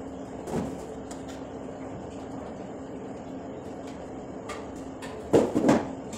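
Light taps and rattles of a folding metal-and-plastic clothes drying rack being handled and adjusted, over a steady low hum, with two louder knocks about five and a half seconds in.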